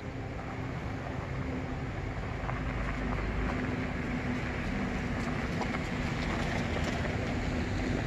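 Steady rumble of distant vehicle traffic, growing slightly louder through the middle, with a faint steady low hum that drops out shortly before the end.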